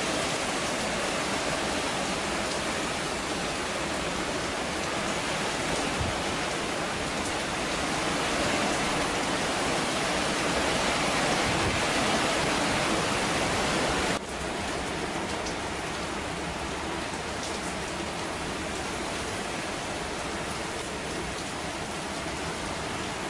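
Heavy, steady hurricane rain from Hurricane Irma, a dense, even hiss. It swells slightly, then drops abruptly to a quieter downpour a little over halfway through.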